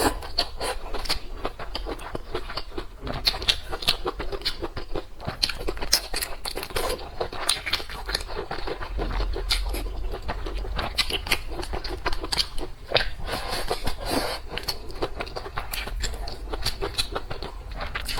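A person eating close to the microphone: crunchy chewing with a steady run of small clicks and scrapes.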